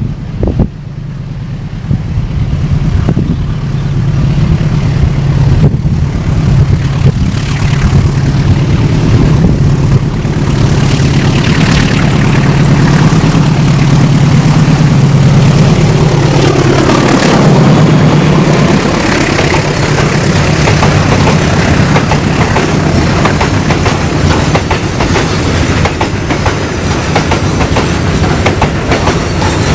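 Babaranjang long coal train passing close by: the diesel locomotive's engine drone swells and passes about halfway through, then the coal wagons roll past with a steady clickety-clack.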